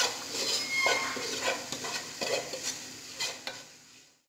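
Sautéing onions and spice powder stirred in a pan, the utensil scraping and knocking against the pan in short, irregular strokes over a light sizzle of frying. The stirring fades away just before the end.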